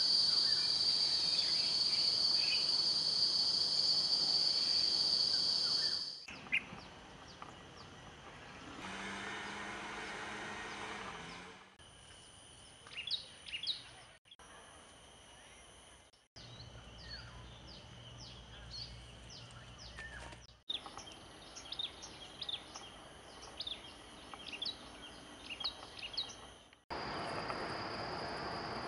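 Outdoor ambience that changes with each cut. A steady high-pitched insect drone plays for the first six seconds and again near the end. In between are quieter stretches with scattered short bird chirps.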